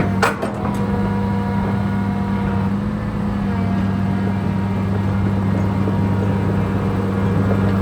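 2005 John Deere 200C LC excavator's diesel engine running steadily during operation, with one sharp clank about a third of a second in. The seller believes the engine's noise comes from a weak injector.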